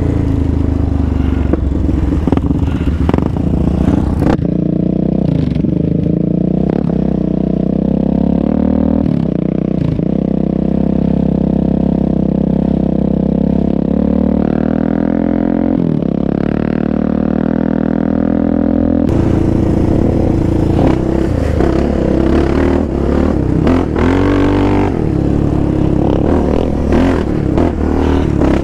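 Yamaha Raptor 700 sport quad's single-cylinder four-stroke engine running and revving up and down while ridden over a rough dirt trail, with clatter and knocks from stones and the chassis. From about four seconds in until about two-thirds of the way through, the sound turns duller and the engine steadier.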